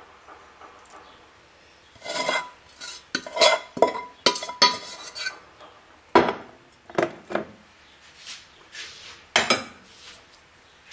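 A metal spoon scraping and clinking against a stainless steel pot as food is spooned out, then several sharp knocks as the pot and spoon are set down on the hob. The clatter starts about two seconds in.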